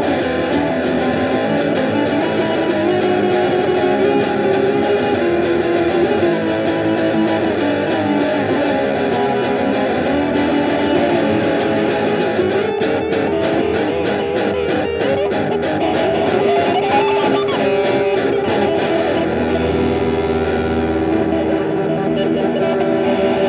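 Background music led by guitar with a steady beat; a little past three quarters of the way through, the highs drop away and it turns duller.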